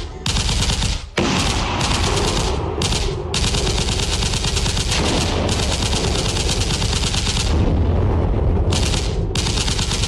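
Recorded machine-gun fire played over loudspeakers: rapid, continuous volleys of shots with a few brief breaks.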